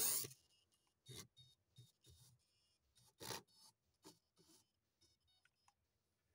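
Micro RC car's electric motor and gears whirring in short bursts as it drives, stops and starts again. A louder burst dies away just at the start, and the strongest other burst comes about three seconds in.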